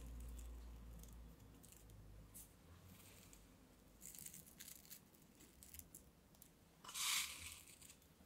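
Dried strawberry pieces crushed and crumbled between fingertips: faint, crisp crackles, a few around four seconds in and a louder crunch near the end.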